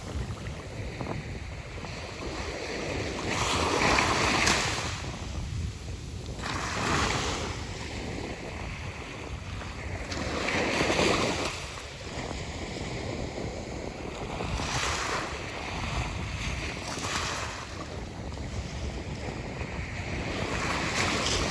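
Ocean surf on a beach: waves breaking and washing in, swelling and fading every three to four seconds over a steady rush.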